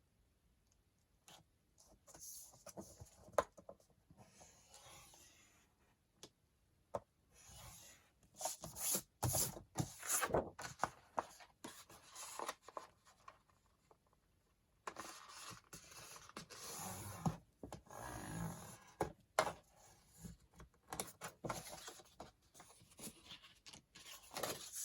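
Sheets of paper being handled and shuffled: irregular rustling, sliding and scraping with occasional light taps, starting after a short quiet moment and growing busier about a third of the way in.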